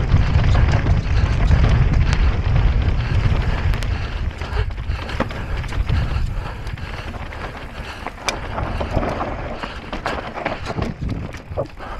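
Wind buffeting the microphone and tyres rolling over rough ground as an electric mountain bike descends at race speed, with scattered clicks and knocks from the bike and loose stones. The wind rush is heaviest at first and eases after about four seconds.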